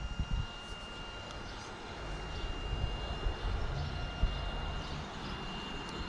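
RC rock crawler's electric motor and drivetrain whining at a steady pitch as it crawls, over an irregular low rumble.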